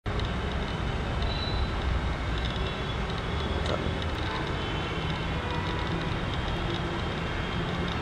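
Steady low outdoor rumble, with faint short high chirps scattered over it.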